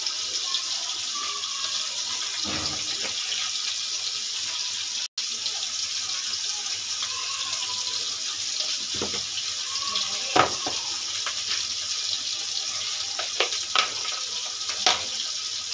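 Oil sizzling steadily in a karahi as tomatoes, green chillies and onions fry. A few sharp knocks and clicks come through the sizzle.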